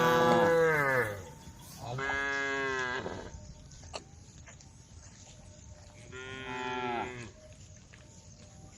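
Cows mooing: three separate calls, the first and loudest sliding down in pitch, a second about two seconds in, and a third about six seconds in.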